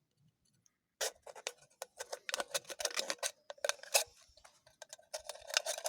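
A knife blade cutting a slit into a thin metal can: a rapid, irregular series of sharp clicks and crackles of tearing metal, starting about a second in.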